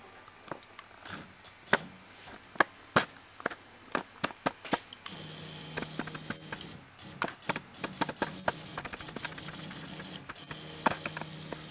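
RepRap 3D printer's X-axis stepper motor driving the carriage on its first motion test: a run of sharp, irregular clicks, then from about five seconds in a steady motor whine with clicks over it, stopping briefly near the end before starting again.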